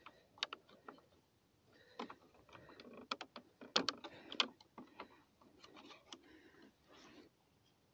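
Plastic clicks and rustling from hands working a sensor cable and its connector into the plastic transmitter box of a Davis Vantage Pro 2 weather station sensor suite. A handful of sharp clicks, the loudest several in quick succession around the middle.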